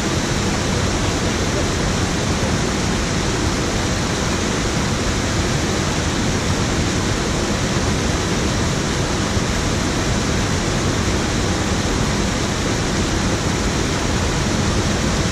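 Water pouring over a low concrete weir into a pool: a steady, loud rushing that doesn't change.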